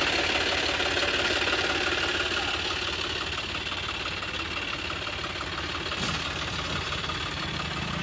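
Tractor diesel engines running steadily as the tractors roll along, the nearest a John Deere 5310 with a second tractor just ahead. A brief high squeak about six seconds in.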